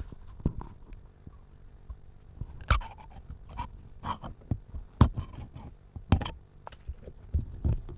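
Irregular plastic clicks and cracks as a plastic engine oil bottle is handled and its sealed cap is twisted and broken open.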